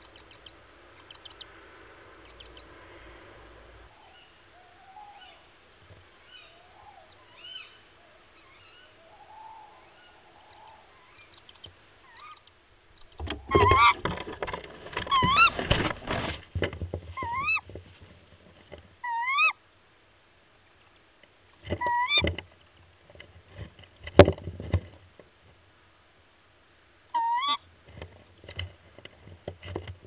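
Tawny owl nest box: faint short peeping calls at first, which the caption gives as owlets calling from inside their eggs. About thirteen seconds in, the adult tawny owl moves in the box with loud scuffling and rustling. It then gives a run of short, sharp, hooked calls that rise and fall in pitch, spaced a second or more apart.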